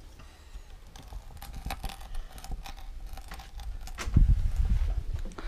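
Irregular clicks, rattles and rustles of pork being kneaded by hand with salted onion in a bowl for shashlik marinade. About four seconds in, a louder low rumble joins them.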